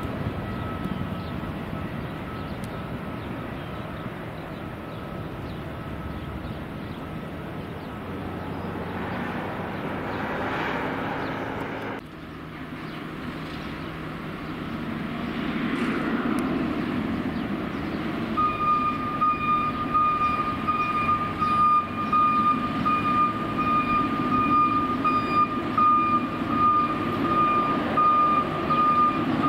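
Vehicle engine noise and outdoor traffic rumble, swelling and fading in the first half. About two-thirds of the way in, a reversing alarm starts beeping steadily and keeps going.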